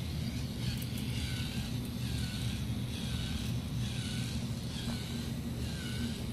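Small K'NEX battery motor running steadily as it drives a crank-and-fork walking mechanism, with a short squeak repeating about three times every two seconds as the legs cycle. The motor is running slowly and weakly, on batteries the builder suspects might be dead.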